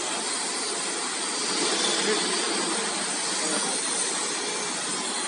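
Steady rushing roar of a flatbed CNC cutting table's vacuum hold-down blower running without letup.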